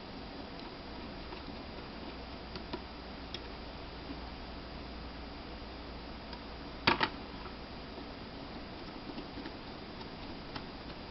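Small Phillips screwdriver driving screws into a laptop hard drive's caddy: faint scattered ticks, with a sharp double click about seven seconds in.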